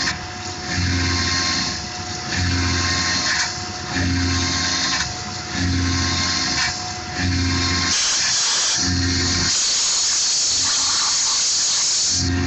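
Tormach PCNC 1100 CNC mill cutting an aluminium pocket with an end mill under coolant, the cut coming and going in a regular cycle about once a second. Near the end the cycle stops and a steady high hiss takes over for a few seconds before the cutting cycle resumes.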